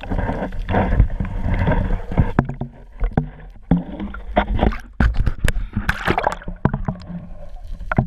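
Knocks and clatter inside a small boat, with sloshing water; a wash of water noise fills the first couple of seconds, and a brief hiss comes about six seconds in.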